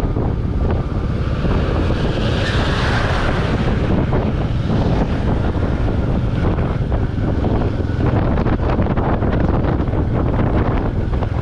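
Royal Enfield Meteor 350's single-cylinder engine running steadily under way, with wind buffeting the microphone. A louder rush of hiss comes and goes about two to three seconds in.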